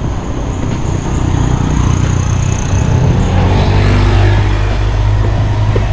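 Wind buffeting and road rumble on an action camera riding on a road bicycle, a steady low rumble that swells louder about three and a half seconds in.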